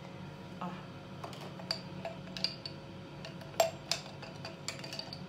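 Scattered small clicks, taps and light clinks of makeup products and their cases being handled and set down, a few sharper ones in the middle, over a faint steady hum.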